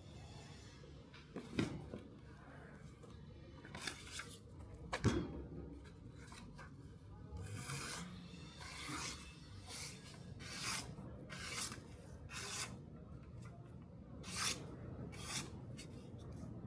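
Hand strokes of an abrasive or file rubbing on the knife's steel, at roughly one a second through the second half. Two sharp knocks come earlier, at about 1.5 and 5 seconds.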